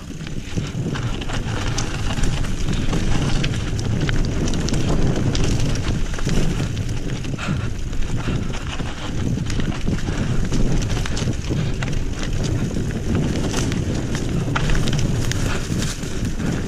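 Wind buffeting the microphone over the clatter of a Trek Remedy 7 full-suspension mountain bike riding fast over rough trail. Tyres run on rough ground, with a steady stream of small knocks and rattles.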